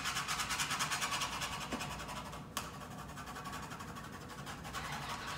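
Pencil shading on drawing paper: rapid, rhythmic back-and-forth scratching strokes, with one sharp click about two and a half seconds in.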